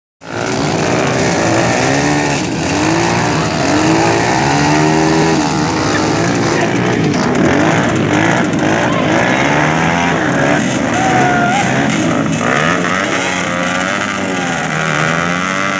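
Several dirt bike engines revving up and down together, their pitches rising and falling over one another, as the riders work the throttle across a log section.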